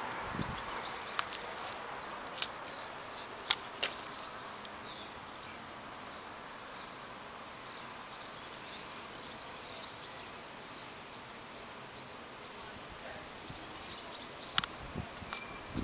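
Quiet background hiss with a few sharp clicks in the first four seconds and faint high chirps. No motor or pump runs.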